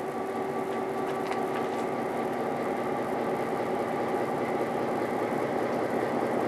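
A diesel train running slowly, with a steady engine drone over rumbling rail noise, gradually growing louder.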